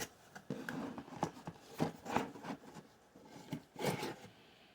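A DVD case and its packaging being handled: irregular light plastic clicks and rustles, with a short pause near the end.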